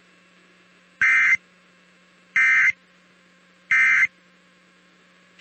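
Emergency Alert System end-of-message code: three short bursts of warbling digital data tones about a second apart, signalling the end of the alert. A faint steady hum runs between the bursts.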